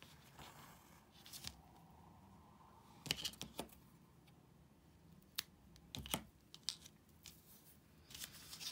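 Faint, scattered clicks and rustles of hands handling a wooden embroidery hoop, fabric and wool while the yarn tail is woven under stitches on the back of the work.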